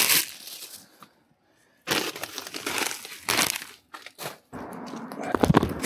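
A bag and loose rubbish being handled and crumpled by hand, in several separate bursts of crinkling, with a few sharp knocks near the end.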